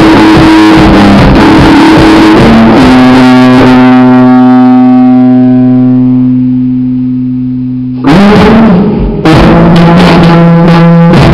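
Electric guitar played through distortion and effects: busy notes, then one low note held and left ringing, fading slowly for about five seconds, before loud playing starts again about eight seconds in.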